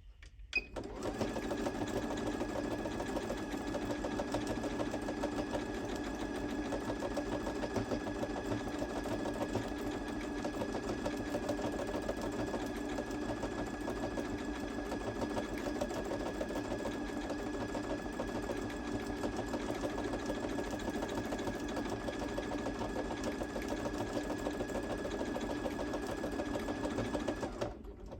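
Necchi NC-204D computerized sewing machine sewing a programmed lettering pattern from memory: a click about half a second in, then the motor's steady whine with the needle stitching. The machine stops on its own shortly before the end, when the stored stitches run out.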